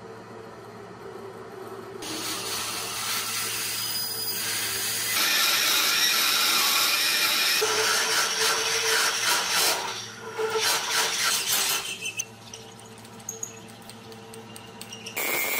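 A metal lathe drilling into the end of a solid brass bar, first with a centre drill and then a large twist drill: a steady motor hum under a hissing, scraping cutting noise that builds a couple of seconds in, is loudest in the middle, turns uneven and then eases off near the end.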